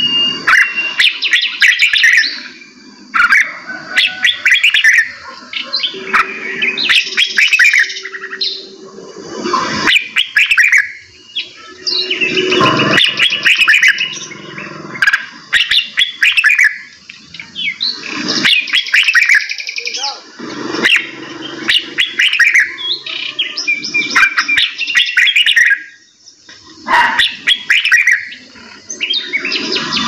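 Several caged songbirds singing and chirping in quick, overlapping phrases, with many short sharp notes.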